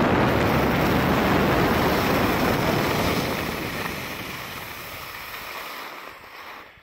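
Skis carving and scraping on hard-packed snow, a loud rushing hiss mixed with wind on the microphone. It fades away over the last few seconds as the skier slows.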